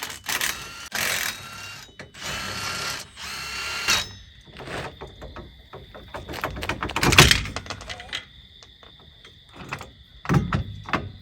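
Power tool running in two short bursts, its motor pitch rising slightly, while bolts come off the wheel hub assembly. Metal knocks and clanks from the tools and parts follow, the loudest a few seconds after the bursts.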